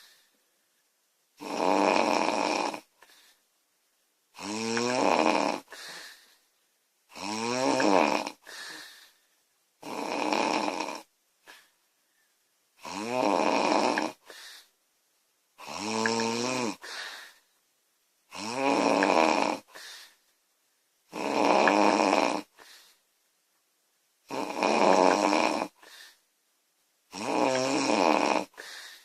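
A girl snoring loudly in a steady rhythm, about one snore every three seconds. Each rasping snore is followed by a shorter, softer breath.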